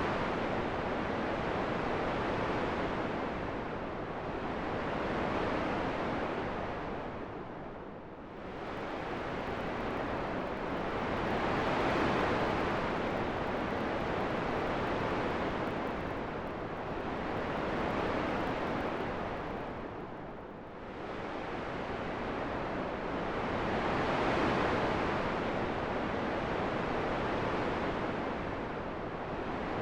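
Wind blowing as a continuous rush that swells and eases in slow gusts about every six seconds, dropping lowest twice.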